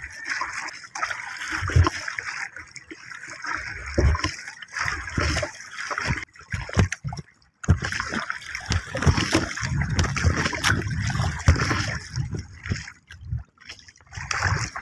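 Wooden paddle strokes splashing through seawater beside a small wooden outrigger canoe, with water sloshing against the hull in irregular swells.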